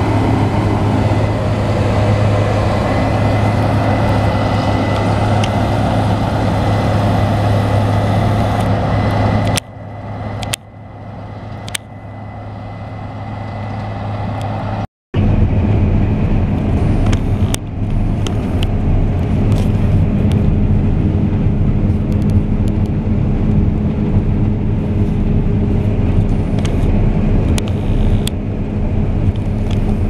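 Case IH combine harvester's diesel engine and threshing machinery running steadily while cutting wheat. About ten seconds in the sound drops suddenly and builds back up, then after a brief cut the combine is heard from on board: a steady engine hum with scattered clicks and rattles.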